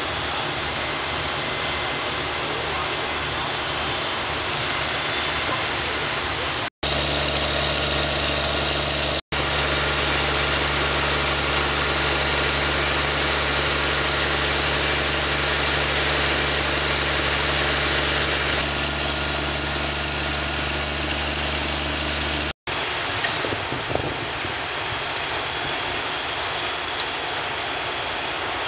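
Fire truck engine running steadily with a low hum under a steady rushing noise, louder through the middle, breaking off for an instant three times where the footage is cut.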